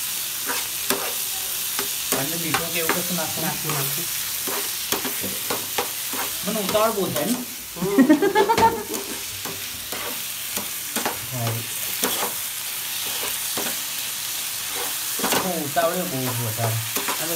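Chopped vegetables sizzling as they fry in a non-stick pan, stirred with a spatula that clicks and scrapes against the pan again and again. A few short wavering pitched sounds come in now and then, the loudest about halfway through.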